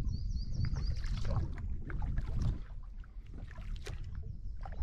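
Kayak paddle strokes: the blade dipping into calm water with splashes and drips running off it, over a low rumble that fades about halfway.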